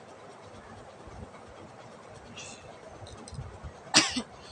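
Mostly quiet, with a short soft hiss of breath about halfway through, then a sudden loud explosive burst of breath from the nose and throat near the end. This is the start of a sneezing and coughing fit set off by a jackfruit-leaf midrib pushed up the nostril.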